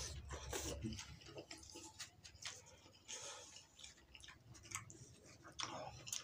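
Close-up chewing and slurping of chicken noodles, with many short wet mouth clicks and smacks and a longer slurp about three seconds in.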